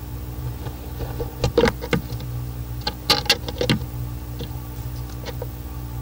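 Steady electrical hum, broken twice by short clusters of sharp clicks and scrapes about a second and a half apart.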